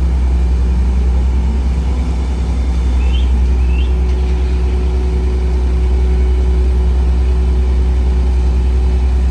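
Vehicle engine running steadily: a deep, even drone, with a steady hum joining about three and a half seconds in.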